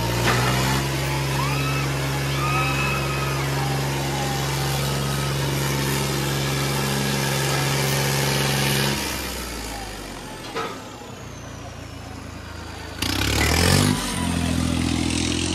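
Tractor diesel engine held at high revs with a steady note, over crowd noise. About nine seconds in it drops back and runs quieter. Near the end it revs up again, the pitch rising, and holds high.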